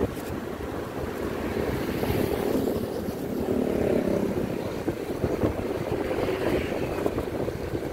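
Road noise from riding in traffic: engine and tyre rumble with wind rushing over the microphone, swelling louder around the middle.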